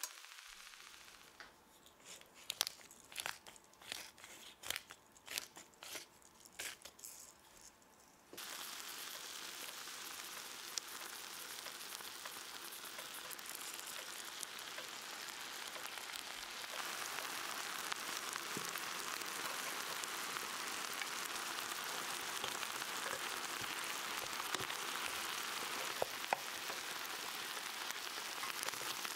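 Beef frying on an electric hot plate: sparse sharp pops and spits at first, then from about eight seconds in a steady, loud sizzle as yakiniku sauce is poured over the meat, growing louder again about halfway through.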